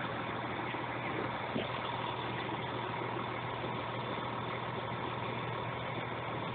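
A fire engine idling steadily, a low, even hum that does not change.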